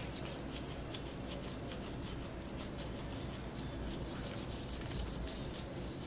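Black-gloved hands rubbing and kneading a bare foot, the gloves sliding over the skin in quick, repeated strokes.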